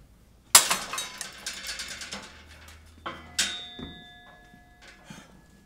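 Metal gym weights clanking. A loud clang about half a second in has a rattling, ringing tail, and two more clangs come around three seconds in, the second leaving the metal ringing.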